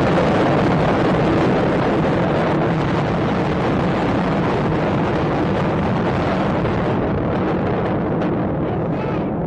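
Continuous loud roar and rumble of the explosions and fireballs of a hotel tower's controlled demolition, a dense wash with no separate blasts, easing slightly near the end.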